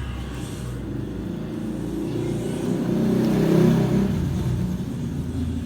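A motor vehicle's low, steady rumble, which swells to its loudest about three to four seconds in and then eases back.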